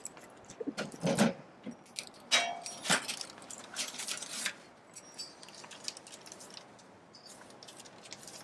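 Keys jangling and a metal wall mailbox being opened, with a few sharp clunks and rattles in the first three seconds. Then newspapers and letters rustle as they are pulled out and handled.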